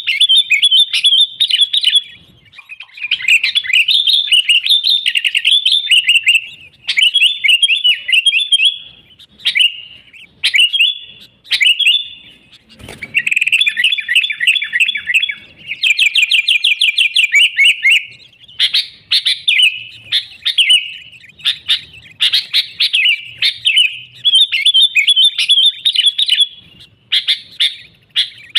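Sooty-headed bulbul (kutilang) singing loudly and continuously in quick, chirpy warbling phrases with brief pauses, including a fast rapid-note trill about halfway through. This is a pure song recording with no other bird sounds mixed in.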